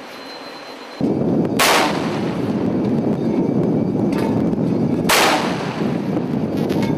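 A ship's Mk 45 5-inch deck gun firing two rounds about three and a half seconds apart, each a sharp blast with a short rumbling tail, over steady wind and sea noise on deck. The first second is quieter steady noise before the shots.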